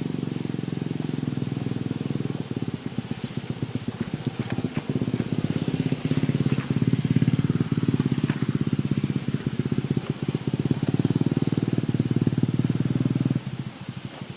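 Passenger train passing close by: a loud, low, rapidly pulsing rumble that shakes the camera, cutting off abruptly about 13 seconds in.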